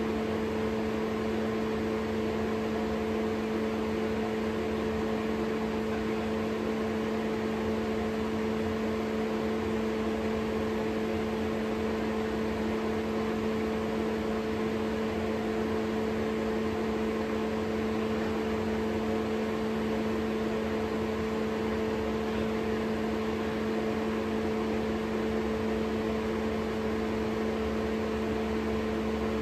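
Dunel GW1000 glow wire test apparatus running with its hood fan: a steady electrical hum with two clear tones an octave apart, over an even airy fan noise.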